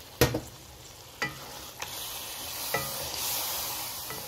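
Beef and spice paste sizzling in a pan with a little added water while being stirred, the spatula knocking sharply against the pan four times. The frying hiss swells in the middle.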